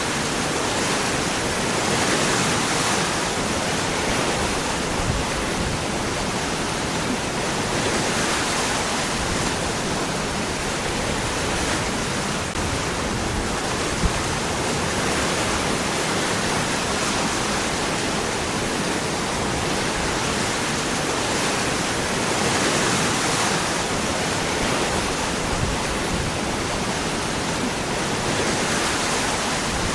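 Waterfall pouring over rocks: a steady, full rush of falling water that swells gently every few seconds, with one brief click about halfway through.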